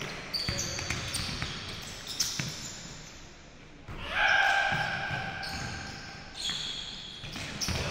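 Basketball game on a hardwood gym floor: the ball bouncing and sneakers squeaking, with a long, loud high squeak about four seconds in.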